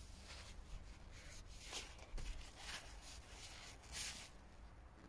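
Faint rustling of a paper towel wiping the engine oil dipstick, heard as a few short scratchy rubs.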